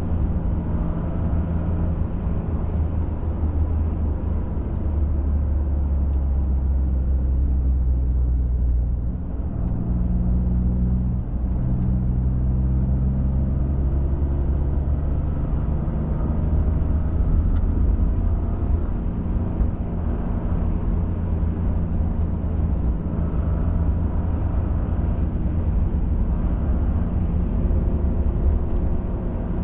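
Ford F-150 Raptor engine running steadily under way, with tyre and road noise heard from inside the cab. The engine note dips and shifts pitch briefly about a third of the way in as the truck changes speed.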